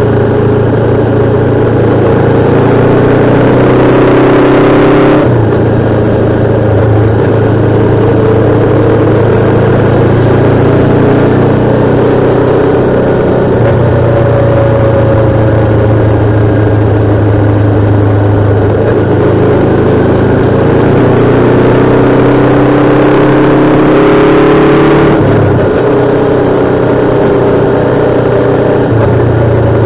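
Motorcycle engine heard from on board while riding, pulling up in pitch as it accelerates, with sudden drops in pitch about five seconds in and again about twenty-five seconds in.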